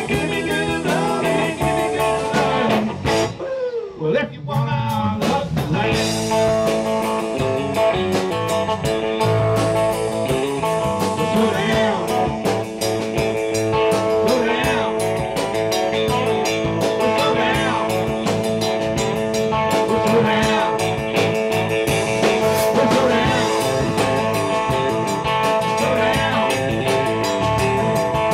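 Live blues/rock-and-roll trio playing: electric guitar lead lines with bent notes over drums and bass guitar, with a short break in the band about three to four seconds in.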